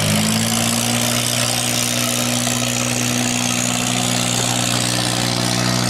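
Engine running steadily at an even speed, its pitch rising slightly right at the start and then holding.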